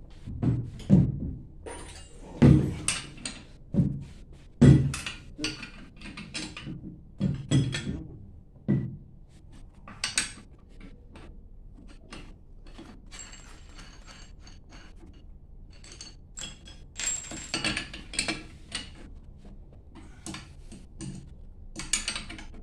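Metal tools and pump parts knocking and clinking while a booster pump is taken apart with wrenches: a string of sharp knocks with a short ring, loudest in the first half, then lighter clinks and taps.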